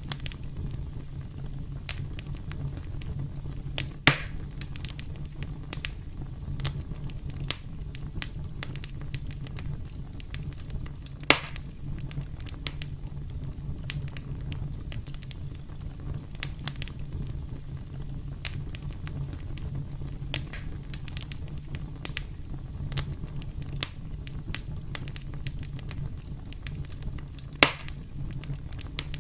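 Wood fire burning with a steady low rumble and constant irregular crackling, with three louder pops spread through.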